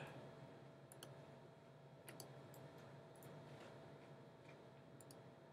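Near silence: faint room tone with a steady low hum and a few scattered faint computer mouse clicks.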